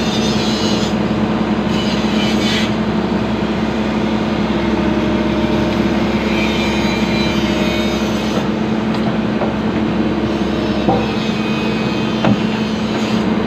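Excavator's diesel engine running steadily, with a stretch of hiss a second or two in and a couple of short knocks near the end.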